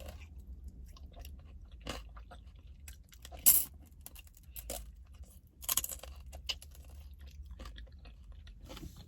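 A person chewing and crunching food close to the microphone, with many small wet clicks and crackles; a sharp, loud crunch comes about three and a half seconds in, and another burst of crunching near six seconds.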